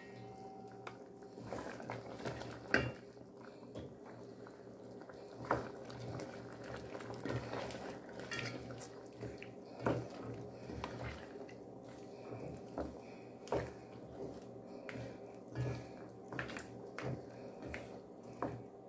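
Wooden spoon stirring a thick stew of curried chicken feet, potatoes and carrots in a metal pot, with irregular light knocks of the spoon against the pot and wet sloshing of the stew.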